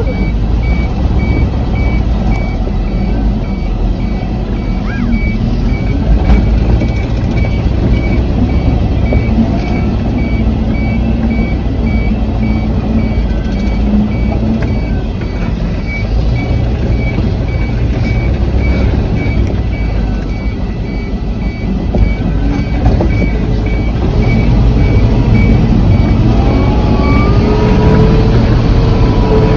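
Bucket truck engine running with its reversing alarm beeping steadily, heard from inside the cab as the truck backs up. The beeping stops near the end and the engine note rises.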